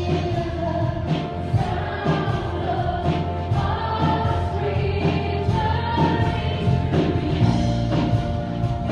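A woman singing a slow worship song into a microphone over a church sound system, backed by a Roland keyboard and a steady beat.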